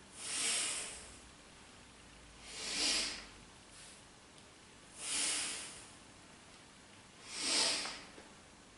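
A person's deep, forceful breaths, four in all, each about a second long and coming about every two and a half seconds. Inhales and exhales alternate in rhythm with a knees-to-chest and leg-extension core exercise.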